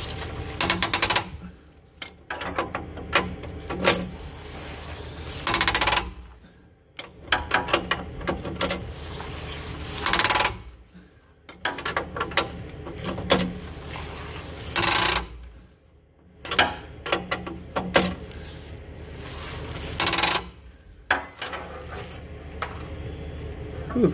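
Hand socket ratchet working a seized, fine-threaded nut off slowly. Quick runs of ratchet clicks alternate with four harsh grating bursts, about five seconds apart, as the stuck nut is forced round on its threads. The noise is a sign of how badly seized the threads are.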